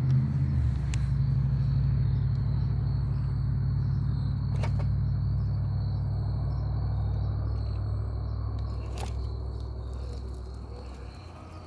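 RC4WD TF2 scale crawler driving, its electric motor and drivetrain running with a steady low rumble that fades away over the last few seconds. Two sharp clicks stand out, about 5 and 9 seconds in.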